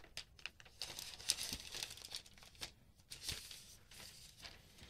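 Thin translucent protective wrap being peeled off a new MacBook Pro, crinkling faintly and irregularly.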